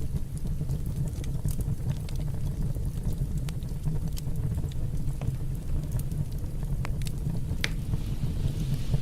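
Fire burning in a fireplace, crackling: scattered sharp pops and snaps over a steady low rumble, with one louder pop near the end.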